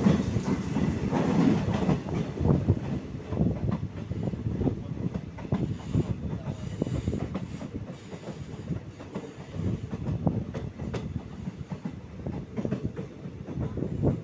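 Wheels and bogies of an ICF passenger coach running over the track: a dense, irregular clatter over a low rumble, heard from the open coach doorway. It is loudest over the first two seconds, and a faint high wheel squeal comes in for a couple of seconds about halfway as the train rounds a curve.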